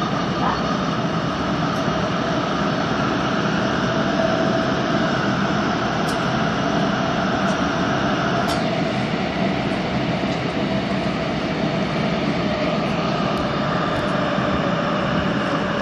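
Busan Metro Line 3 train running between stations, heard from inside the car: a steady rumble of wheels on rail with a held droning tone over it. There are a couple of faint ticks near the middle.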